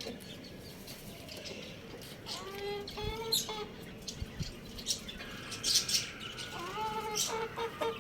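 Chicken calling twice, each a drawn-out pitched call of about a second, the first about two seconds in and the second near the end, with small birds chirping around it.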